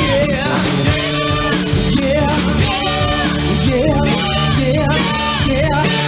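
Rock music with singing over a steady bass line.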